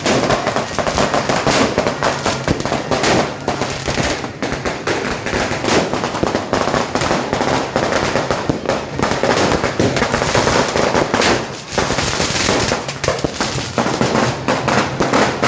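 Fireworks and firecrackers going off in a dense, unbroken barrage of pops and bangs, many reports a second.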